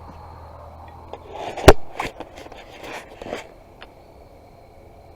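Handling noise: scraping and knocks with one loud sharp click a little under two seconds in, then a few faint clicks.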